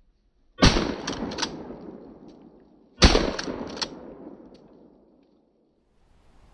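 Two gunshots about two and a half seconds apart, each followed by an echo that fades over about two seconds: the hunter's shots at a rabbit, the kill shot.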